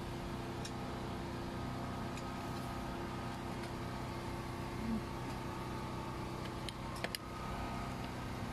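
Motor vehicle engine idling steadily, a constant hum, with a couple of light clicks about seven seconds in.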